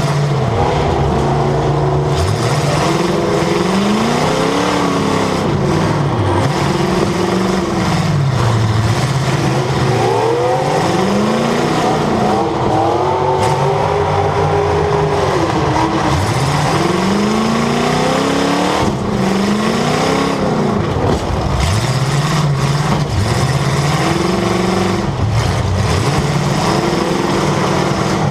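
Demolition derby car's engine heard from inside the car, revved up and let fall over and over, its pitch rising and dropping every two to three seconds.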